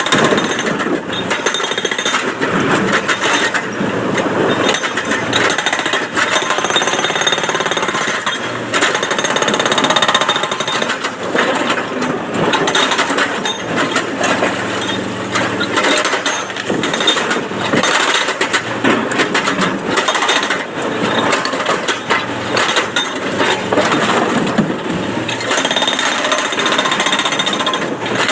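Excavator-mounted hydraulic rock breaker hammering on quarry stone, a rapid, continuous pounding that keeps going without a break.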